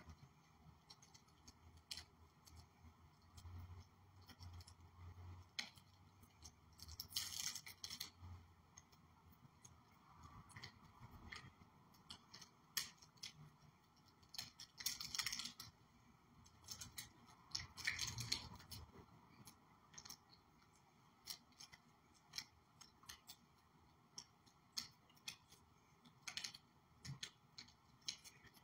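Faint clicking and crinkling of small plastic being handled in the fingers, with a few louder crackling rustles: a prefilled communion cup and wafer pack being peeled open.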